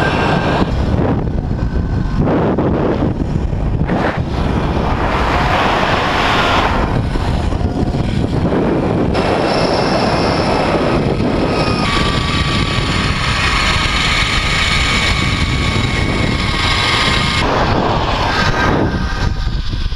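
Loud, steady rush of wind over the microphone as a rider travels at high speed down a zipline. From about ten seconds in, the trolley's pulley wheels add a faint whine as they run along the steel cable.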